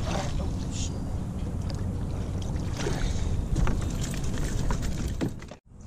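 Water splashing as a hooked fish thrashes in a landing net beside a canoe, with a few sharp splashes and knocks, over a steady low rumble of wind on the microphone. The sound drops out briefly near the end.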